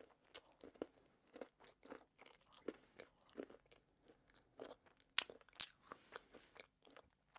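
Close-miked chewing of a mouthful of soft marbled sponge cake: faint, irregular wet mouth clicks and smacks, with a few louder ones about five seconds in.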